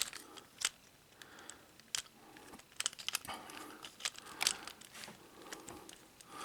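Hard plastic parts of a Transformers Studio Series WWII Hot Rod action figure clicking and rubbing as it is transformed by hand: irregular sharp clicks with soft rustling between them.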